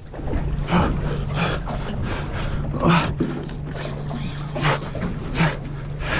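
A boat's engine idling with a steady low hum, while short rushes of noise come and go every second or so during the fight with a hooked kingfish on a spinning rod.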